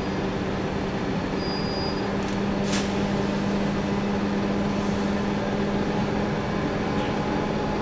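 Scania K280UB bus's diesel engine and drivetrain running at a steady note under way, with road noise, heard from inside the passenger cabin. A brief knock or rattle comes about three seconds in.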